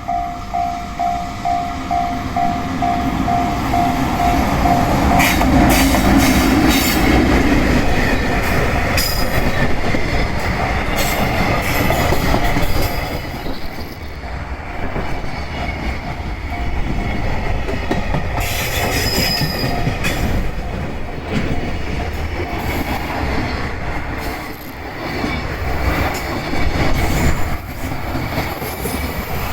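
Level-crossing warning bell ringing a little over twice a second, drowned out after about five seconds as a train runs past close by. Its wheels clatter over the rail joints, with squeals from wheel on rail.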